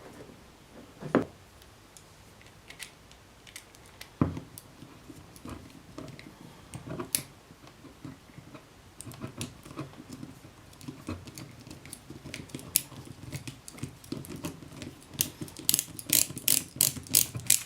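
A small screw being worked back into the ignition contact-point plate of a Suzuki GS550 with a screwdriver: scattered light metallic clicks and scrapes, coming in a quick run near the end.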